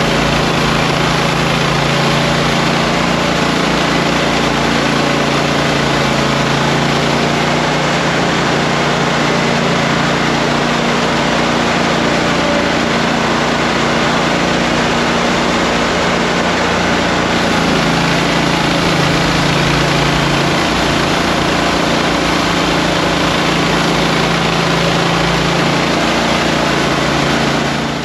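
Toro Multi-Force's engine running steadily under load while its power broom attachment spins, sweeping compacted icy snow off the pavement.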